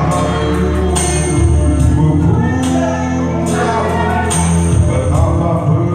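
Music with sustained chords and a percussive hit about once a second.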